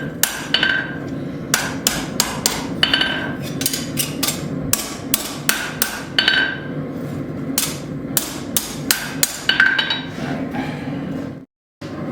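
Blacksmith's hammer striking steel on an anvil in a quick, uneven run of blows, many of them ringing: surface texturing of the forged steel hook, not drawing it out. The sound cuts out for a moment near the end.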